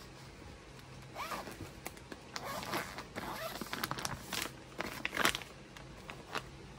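Rustling and handling noises from bundles of cotton blouse pieces being shown, coming in irregular short bursts with a few sharp clicks.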